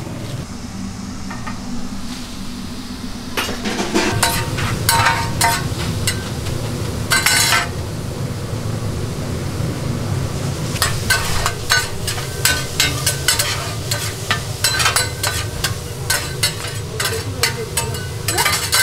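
Metal spatula scraping and tapping on a flat steel griddle as it turns pieces of intestine for gopchang stir-fry. The strikes begin about three seconds in and come thick and fast in the second half, over a steady low hum.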